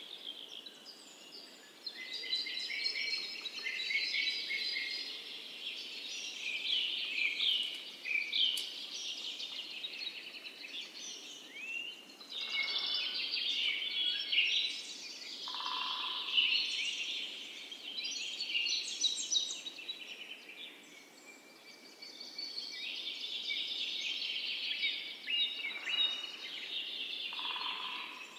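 A chorus of several songbirds chirping and singing in dense, overlapping phrases, with a short, lower call about halfway through and again near the end.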